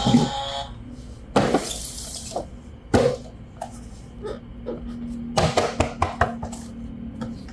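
Hard plastic toy parts and packaging being handled: scattered clicks and knocks, one followed by a brief rustle, with a quick cluster of clicks a little past the middle.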